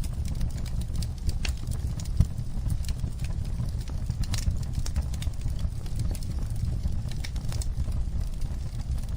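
Wood fire crackling, with scattered sharp pops and snaps over a steady low rumble; one louder pop about two seconds in.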